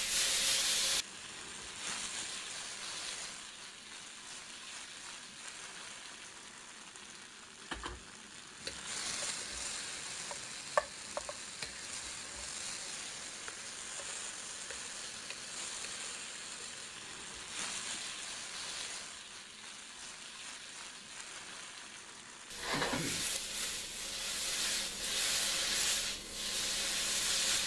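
Cubed tofu sizzling and frying in hot oil in a wok while it is stirred with a wooden spatula. A sharp click stands out a little before halfway.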